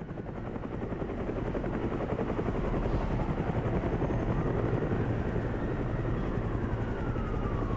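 A steady, low mechanical rumble with a fast flutter, fading in over the first second, with a faint falling whine near the end.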